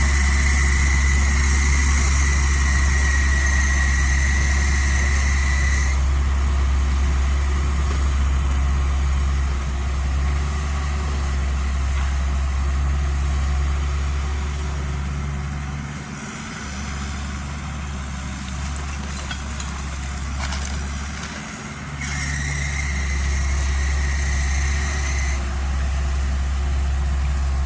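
Kubota U50 excavator's diesel engine running steadily, with a couple of brief dips in level in the second half.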